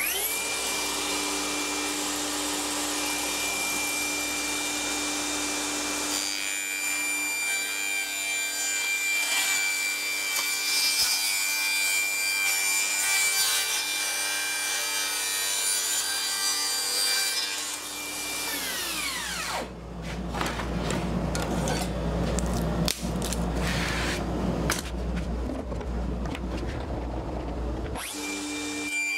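DeWalt jobsite table saw spinning up to a steady high whine, then ripping a pallet-wood panel from about 6 s to 17 s, trimming the groove off its edge. The saw then winds down with a falling whine. Knocks from the board being handled follow over a low rumble, and the saw starts again near the end.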